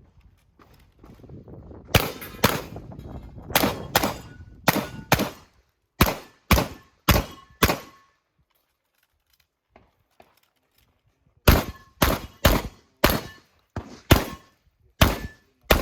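Beretta 1301 Comp Pro semi-automatic 12-gauge shotgun firing two fast strings of about ten shots each, roughly two shots a second, with a pause of about three seconds between them. A short ring follows several of the shots.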